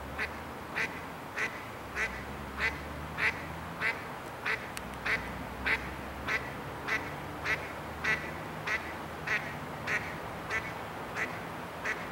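A duck quacking in a long, even series of short quacks, a little under two a second.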